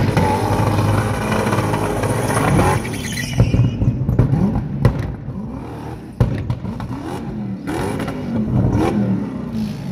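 Ford Sierra's V8 engine revving hard while the rear tyres spin in a smoky burnout. After about three seconds the tyre noise drops away, and the engine revs rise and fall several times, with a few sharp cracks.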